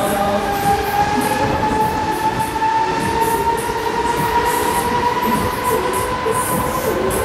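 Huss Break Dancer fairground ride running: a steady rumble and rattle of its spinning cars and turntable, over which a whine rises slowly in pitch.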